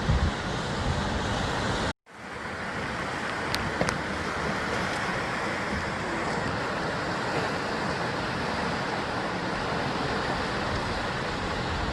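Sea surf washing steadily against basalt rock cliffs, a continuous hiss of waves. About two seconds in, the sound cuts out briefly and then fades back in.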